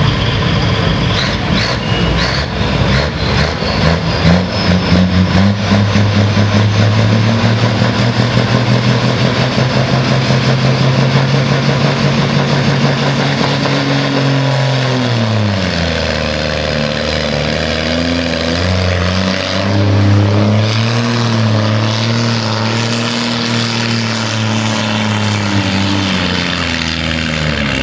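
DAF pulling truck's diesel engine running flat out under heavy load as it drags a weight-transfer sled down a dirt track. The engine note climbs slowly, then about halfway through drops sharply as the growing load drags the engine down, and it labours on at a lower, wavering pitch.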